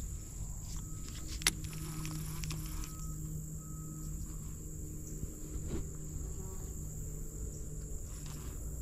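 Insects buzzing steadily in a high, unbroken drone, with a single sharp click about a second and a half in.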